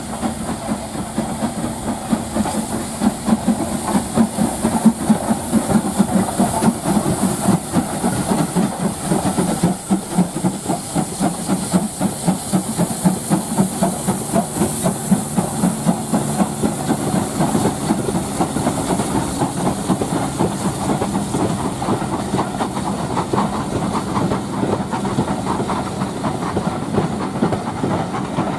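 Two steam locomotives, SR Q class 0-6-0 No. 30541 leading BR Standard Class 5 4-6-0 No. 73156, working a passenger train away with a rhythmic chuffing from their exhausts and a steady hiss of steam. Near the end the coaches roll past, their wheels clattering over the rail joints.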